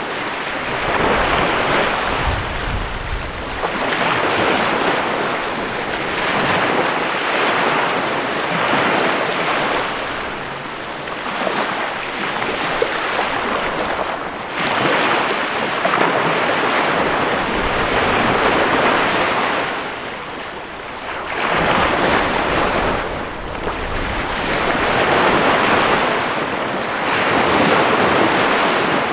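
Small bay waves breaking and washing up a sandy beach, the surf swelling and easing every few seconds.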